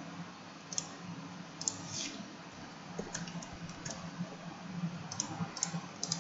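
Computer mouse and keyboard clicks, a dozen or so short, sharp clicks spaced irregularly, over a faint steady low hum.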